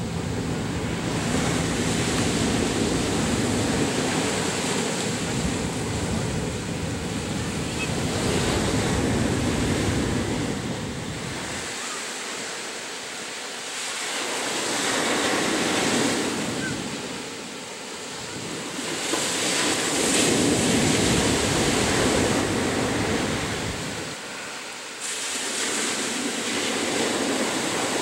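Ocean surf breaking on a sandy beach and washing up the shore, its rush swelling and falling back every few seconds as each wave comes in.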